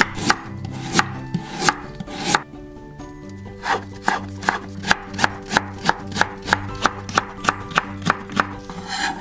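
Chef's knife cutting a carrot on a wooden cutting board. A few spaced slicing strokes come first, then after about three seconds a steady run of chops, about three a second, as the slices are cut into thin matchsticks.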